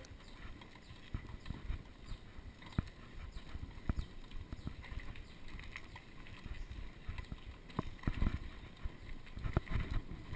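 Mountain bike rattling and clattering as it rolls over a bumpy dirt trail: irregular knocks and clunks from the frame and parts over a low rumble.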